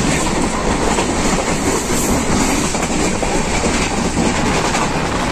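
Indian Railways express passenger train running slowly, heard from inside a coach: a steady rumble and rattle of the wheels on the track.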